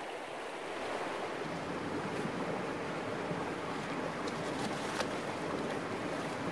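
Steady rushing of a shallow river running over rocks, with a few faint clicks about two and five seconds in.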